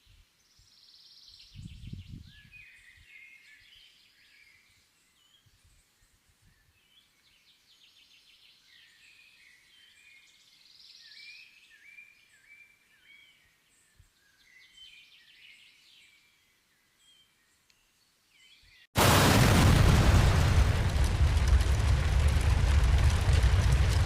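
Birds calling in short chirps over a quiet outdoor background, with a low thump about two seconds in. About five seconds before the end, a loud, dense rushing noise cuts in abruptly and holds steady.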